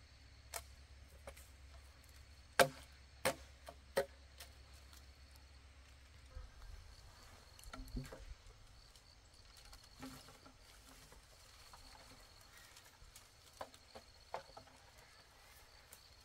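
Scattered sharp knocks: a light one just after the start, three louder ones about two to four seconds in (the first the loudest), and two more near the end, over a faint steady high-pitched hum.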